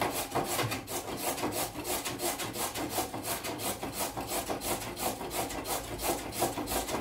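A carrot being grated by hand on a metal grater: quick, even rasping strokes, about four a second.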